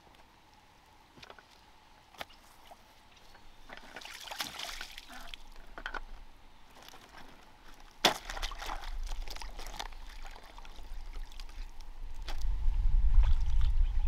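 Water sloshing and splashing in bursts among scattered small clicks, with the loudest splash about eight seconds in. Wind rumble on the microphone comes in near the end.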